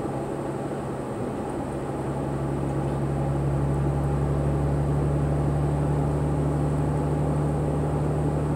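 Car engine and road noise heard from inside the cabin: a steady low hum that grows louder about two to three seconds in, then holds steady.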